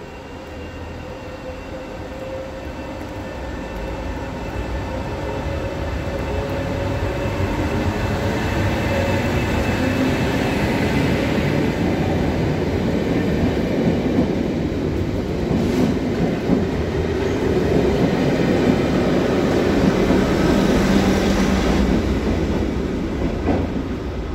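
Class 73 electro-diesel locomotive departing at the head of a Network Rail test train, with a steady whine at first over the running noise. The rumble of the wheels and coaches passing close by builds steadily, is loudest around twenty seconds in, then eases as the train moves away.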